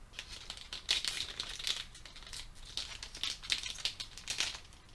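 Foil wrapper of a Pokémon trading card booster pack crinkling in irregular bursts as it is handled and worked open at its crimped top.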